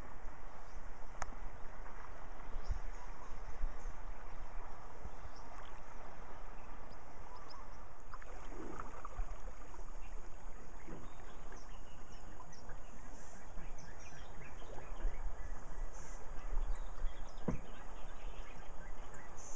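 Calm river ambience from a canoe: a steady hiss of moving water with low wind rumble on the microphone, a few faint bird calls and the odd soft knock or splash.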